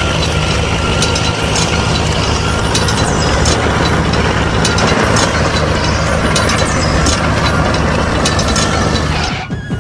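Mini tractor's small motor running steadily with a mechanical gear rattle and scattered high clicks, cutting off abruptly near the end.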